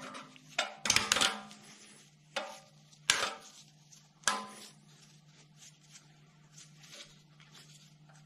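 Metal spring clip being pressed and snapped back onto a rear brake caliper: about five sharp metallic clinks with a short ring in the first four and a half seconds, then only faint handling.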